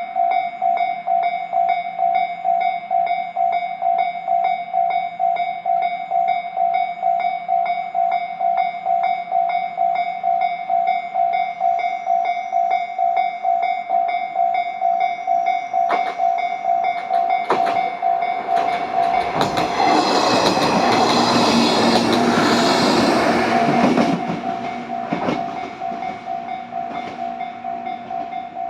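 Japanese level-crossing alarm bell ringing in a steady repeating clang throughout. A little over halfway through, a JR 105-series electric train passes over the crossing: its wheels clatter over the rail joints, loudest for a few seconds, then fade away while the bell keeps ringing.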